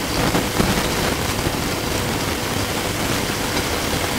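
Steady hissing of a gas stove burner with a lidded pot of water and couscous simmering on it, with a faint steady hum and a few light ticks.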